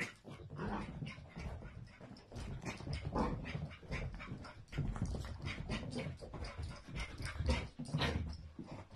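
A puppy making dog noises as it plays, among a quick, irregular run of short knocks and scuffs.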